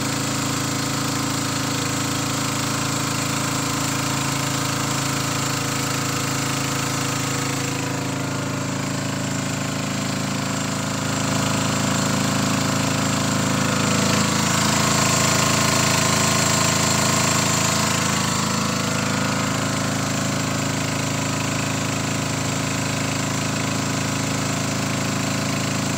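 A small boat's engine running steadily under way, with water rushing along the hull; it gets a little louder midway.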